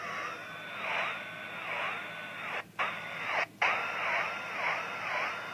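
A ham radio receiver's beat-note whistle from an oscillator running at about 11.14 MHz, over steady receiver hiss. The whistle's pitch dips and swings back up about twice a second as a hand moves closer to and away from the oscillator, which pulls its frequency. The sound cuts out briefly twice near the middle.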